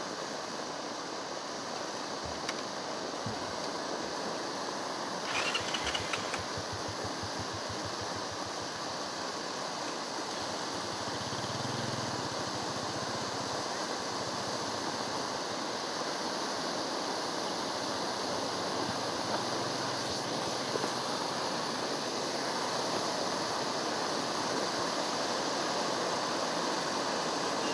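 Cone fountain firework burning, a steady hiss of spraying sparks, briefly louder and crackling about five seconds in.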